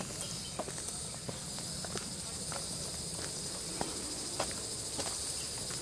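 Footsteps on a dirt forest path, irregular soft crunches about one or two a second, over a steady high-pitched insect chorus.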